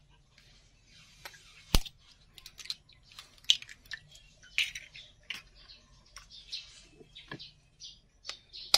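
Eggs being cracked and handled over a bowl: a sharp tap against the rim about two seconds in, then scattered small clicks and short high scrapes of shell and utensil.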